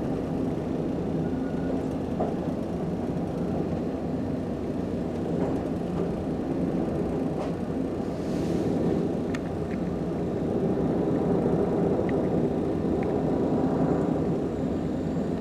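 Amtrak passenger train giving a steady low rumble and hum, growing slightly louder about ten seconds in.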